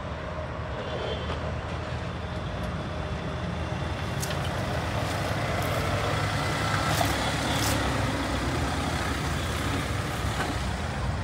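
Mahindra Thar SUV driving slowly over a dirt track, its engine running at low speed with tyre noise, growing gradually louder as it comes closer. A few sharp ticks are heard around the middle.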